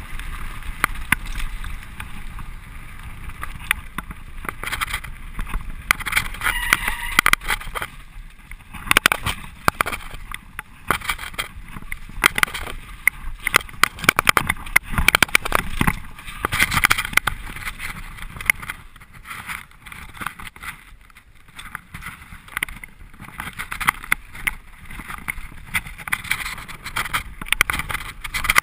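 Mountain bike descending a rough dirt trail at speed: a continuous rush of wind and tyre noise over loose dirt, broken by frequent sharp rattles and knocks as the bike hits bumps.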